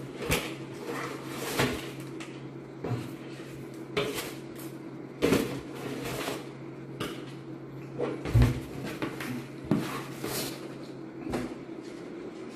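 Cardboard fried-chicken bucket being tipped and handled on a table: a series of knocks and taps, the loudest a dull thump about eight seconds in, with paper crinkling, over a steady low hum.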